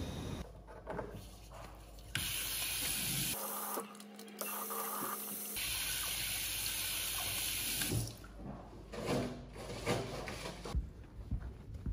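Water running from a washbasin tap into the sink while hands are rinsed under it. It starts about two seconds in and stops about eight seconds in, and a few light knocks and taps follow.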